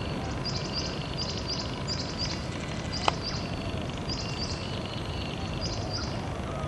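Small birds chirping: a busy run of short, high chirps, several a second, with a fainter buzzy trill beneath, over a steady low rumble. A single sharp click about three seconds in.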